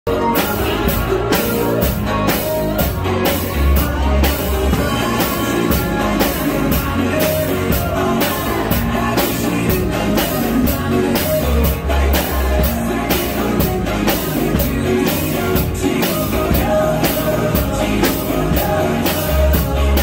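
A child playing a Tama drum kit in a steady rock beat, with sharp cymbal or hi-hat strikes about twice a second, along with recorded rock music with singing and guitar.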